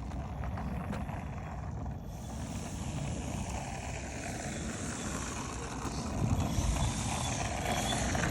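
Electric motor and propeller of a 3D-printed RC airplane running on the ground, a high whirring hiss that comes up about two seconds in, over a low rumble of wind on the microphone.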